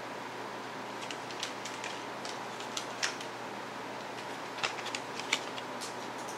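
Small plastic clicks and taps of a CD jewel case being handled and turned in the hands, the sharpest about three and five seconds in, over the steady hiss of an air conditioner and a fan on low.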